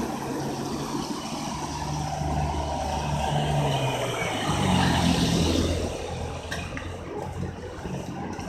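A car engine running with tyre hiss on a wet road, growing louder to about five seconds in and then falling away.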